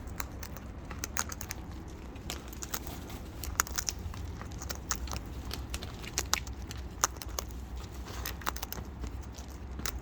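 Cockatoos eating, their beaks cracking and crunching food in irregular sharp clicks and snaps, several a second, over a steady low hum.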